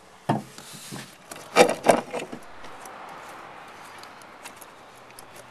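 A few knocks and metallic clinks as a rear coil-spring strut assembly is handled and pushed up into the wheel well: one about a third of a second in and a cluster around two seconds in, then quieter rustling.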